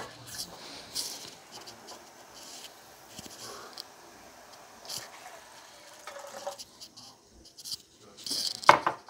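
Kitchenware being handled: scattered clicks and knocks of a glass measuring cup and a saucepan being moved, with a louder clatter near the end as a hand works over the pot.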